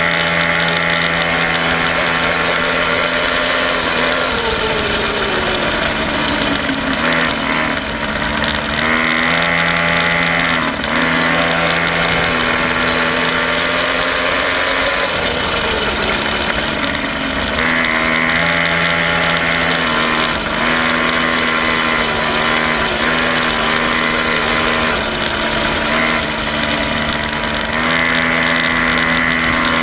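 Quad bike engine running as it is ridden, the pitch dropping several times as the throttle eases off and holding steady in between.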